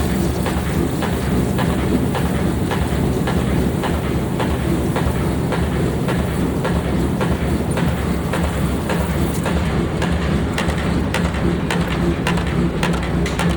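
Pneumatic forging power hammer striking a hot steel blank over and over, about two blows a second, over the steady low hum of the running hammer.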